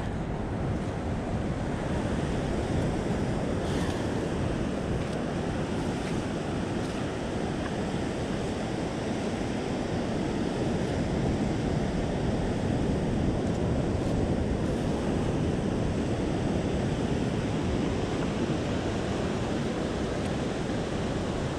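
Ocean surf washing in, a steady rush, with wind buffeting the microphone.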